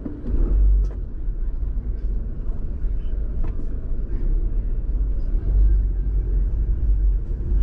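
Car driving slowly, heard from inside the cabin: a low engine and road rumble that swells louder about half a second in and again for a stretch around the six-second mark.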